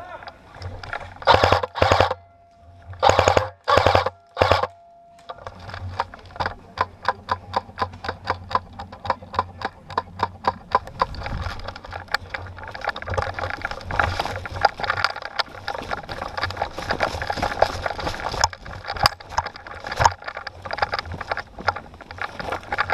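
Footsteps crunching and rustling through dry leaf litter and brush, a quick run of crackling steps several a second from about five seconds in. Before that come a handful of louder rustling bursts.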